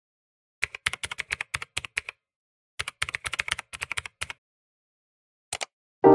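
Keyboard typing sound effect: two quick runs of keystrokes, each about a second and a half long, then a double click near the end. Piano music comes in right at the end.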